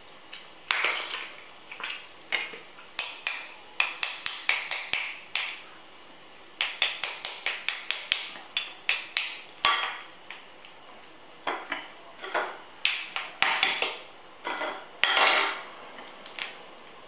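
Cooked crab shells cracking and snapping as they are pulled apart by hand, with clicks against a plate. The sharp cracks come in irregular runs of rapid snaps, with short pauses between them.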